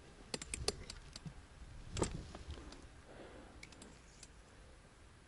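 A few light clicks and taps in the first second or so, then a single duller knock about two seconds in.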